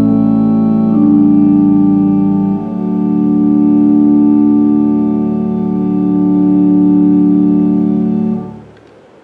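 Organ playing slow held chords, changing chord about a second in and again near three seconds; the final chord is released about eight and a half seconds in and dies away, closing the piece.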